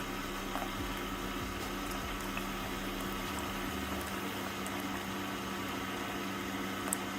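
Keurig K-Compact single-serve coffee maker brewing a cup: a steady pump hum with hot coffee running into the mug. A small click sounds just before the end.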